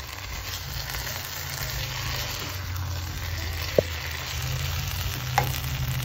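Vegetables and quinoa sizzling in a hot pan while being stirred together, with a steady low hum underneath. Two sharp clinks of the utensil against the pan come a little past the middle and again near the end.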